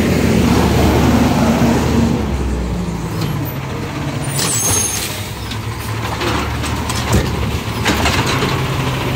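Recycling garbage truck's diesel engine running, its note dropping a little about two to three seconds in. Partway through there is a short hiss and clatter, and a single knock comes later.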